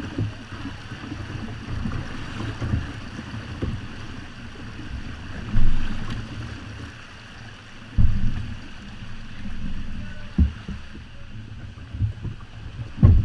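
Water sloshing around a kayak with wind rumble on the microphone, broken by several dull thumps.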